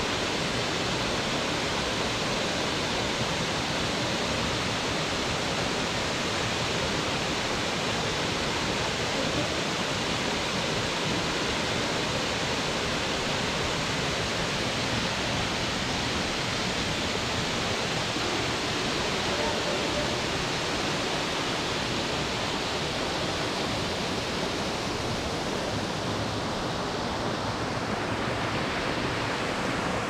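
Waterfall pouring into a rock pool: a steady, unbroken rush of falling water, its tone shifting slightly near the end.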